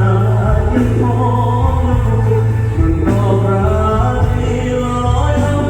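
Thai luk thung song performed with a band, heavy pulsing bass under a sung melody.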